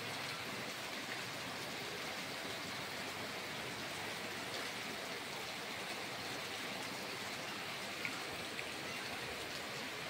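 Steady rain falling on a flooded road: an even hiss, with a couple of faint ticks about eight seconds in.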